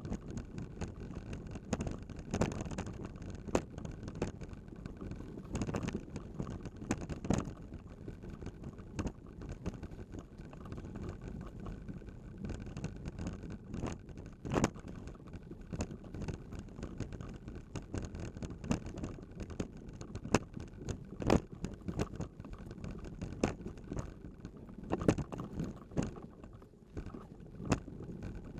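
A vehicle jolting along a rough dirt trail: steady rolling rumble with frequent irregular knocks and rattles from the bumps, and wind on the microphone.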